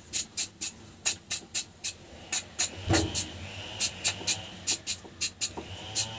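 A steel wire brush scrubbing in quick, even strokes, about four a second, cleaning out a clogged fuel return fitting.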